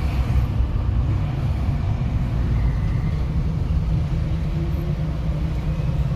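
Steady low rumble of road traffic, engine and tyre noise, with no sharp events.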